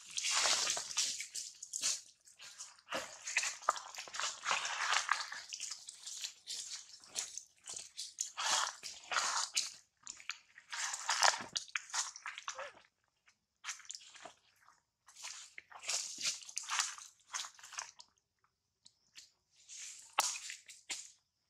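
Dry leaf litter and twigs crunching and rustling in irregular bursts of a second or two, with longer quiet gaps in the second half.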